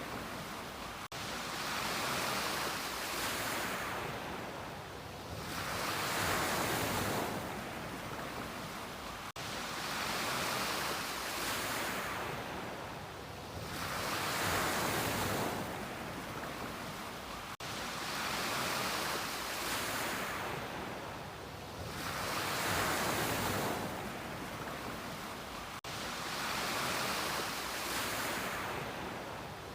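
Ocean waves breaking on a beach, the surf swelling and fading about every four seconds. Four very brief dropouts interrupt it, roughly eight seconds apart.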